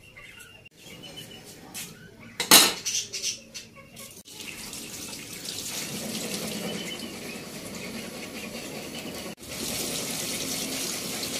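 A few knocks, the loudest about two and a half seconds in. Then, from about four seconds in, a tap runs steadily into a stainless steel sink basin while hands are washed under it. The flow breaks off briefly about nine seconds in and comes back a little louder.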